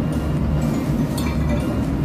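Ship's engine-room machinery running with a steady low drone. A light metallic clink about a second in.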